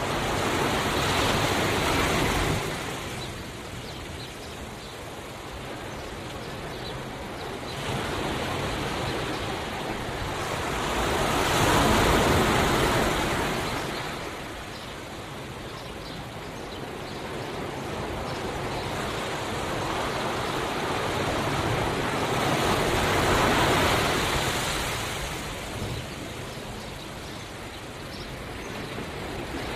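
Ocean waves breaking and washing up the shore, an even rushing noise that swells and fades with each wave, three surges about eleven seconds apart.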